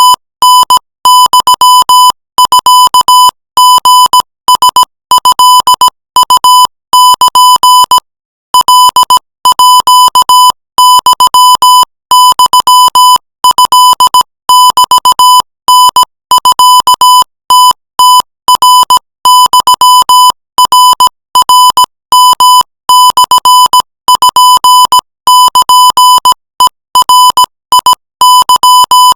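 Morse code sent as a keyed tone near 1 kHz at 20 words per minute: a fast, unbroken run of short and long beeps, with a slightly longer gap between words about eight seconds in.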